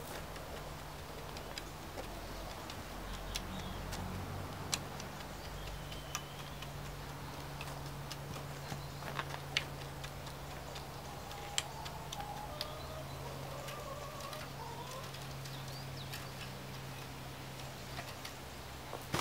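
Metal garden rake working over bare, fine soil to cover broadcast-sown seed, with scattered sharp clicks and ticks.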